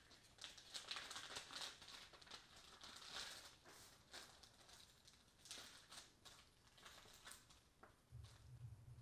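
Thin clear plastic parts bag crinkling and rustling in gloved hands as it is opened and small brake-lever parts are tipped out onto paper. A low steady hum starts near the end.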